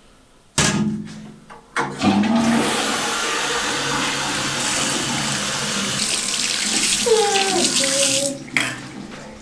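A sharp knock as a toilet lid drops shut, a smaller knock, then water running from a bathroom sink tap for about six seconds as hands are washed. Near the end a child hums briefly over the water.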